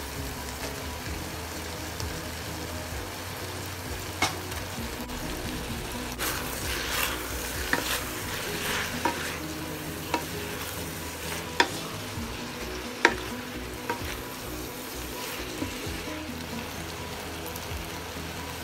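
Bean sprouts, fried tofu and Chinese chives sizzling steadily as they are stir-fried in a non-stick wok, turned with a wooden spatula. The spatula scrapes and knocks sharply against the pan several times, the loudest knock about two-thirds of the way through.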